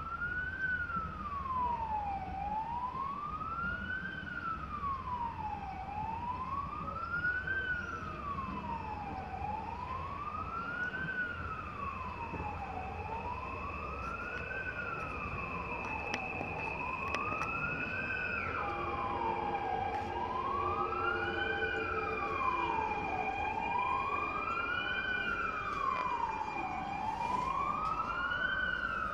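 Emergency vehicle siren in wail mode, rising and falling slowly about once every three and a half seconds.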